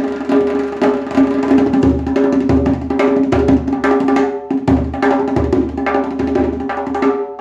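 12-inch Aria Percussion djembe played in a steady rhythm, deep bass strokes mixed with sharper slaps, over steady held tones. The playing breaks off briefly near the end.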